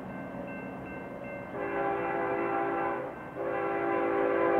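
Diesel freight locomotive's multi-note air horn sounding two blasts: after a faint first second and a half, one blast of about a second and a half, a short break, then a second blast that starts a little over three seconds in and holds on.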